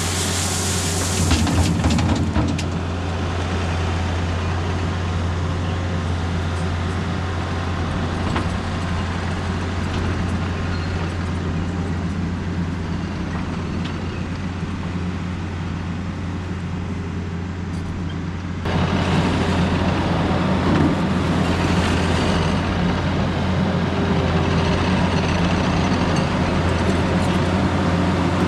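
Diesel engine of a Takeuchi compact earthmoving machine running steadily under work. About two-thirds of the way through it gets louder and holds there, as the engine takes on more load.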